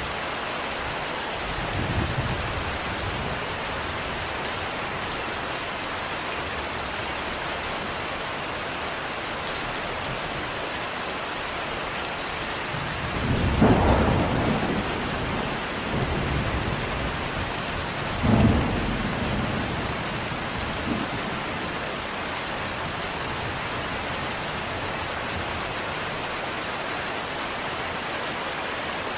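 Steady rain falling, with rolls of thunder: a faint rumble about two seconds in, the loudest one about halfway through, then another a few seconds later.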